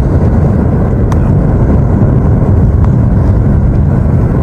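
Lava fountain erupting: a loud, steady, low rumble of gas and molten lava jetting from the vent, with two faint cracks, about a second in and near three seconds.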